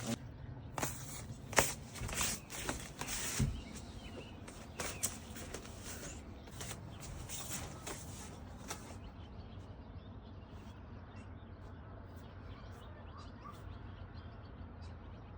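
Scattered clicks, knocks and rustles of handling for the first nine seconds or so, then a steady low background with a few faint bird chirps.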